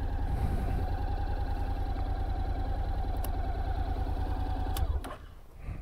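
Motorcycle engine idling with an even, rapid pulse, then switched off about five seconds in.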